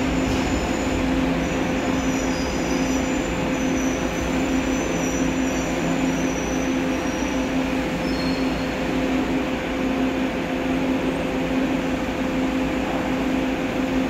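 Korail electric subway train coasting and braking to a stop at the platform, heard through the platform screen doors: a steady rumble and hum with faint high wheel and brake squeals through the first half and again briefly about eight seconds in.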